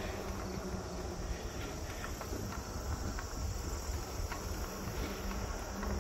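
Steady high chirring of insects in the surrounding trees and grass, under a low rumble of wind on the microphone from riding along on an e-bike.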